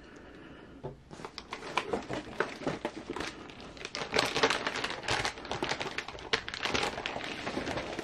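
Cardboard box and packaging being handled and shifted, with irregular rustling, scraping and light knocks that come thick and fast from about a second in.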